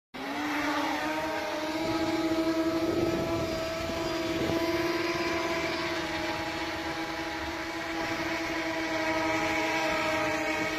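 Homemade drone's electric motors and propellers running with a steady, high hum that rises slightly in pitch as they spin up, then holds.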